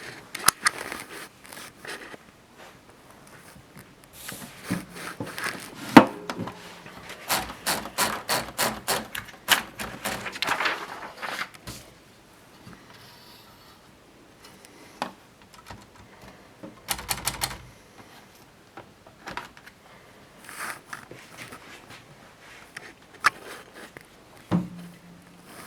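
Orange Tessy manual portable typewriter being typed on: runs of quick key strikes with pauses between them and a few heavier clacks.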